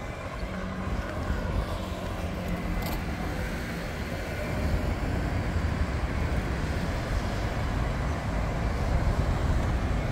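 Road traffic: cars passing with a steady rumble of engines and tyres.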